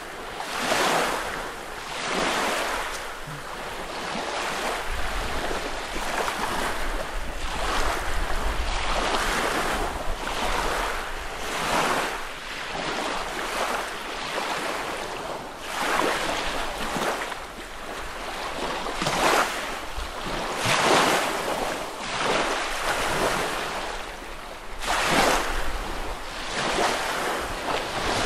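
Small lake waves lapping and washing onto a beach, one every second or two, with wind rumbling on the microphone.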